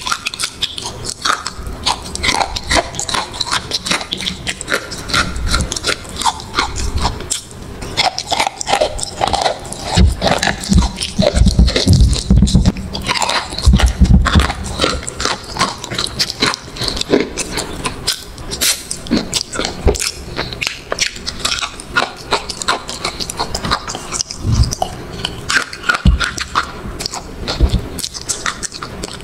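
A person biting and chewing a crunchy, crumbly food, with a rapid run of sharp crunches throughout that is heaviest in the middle.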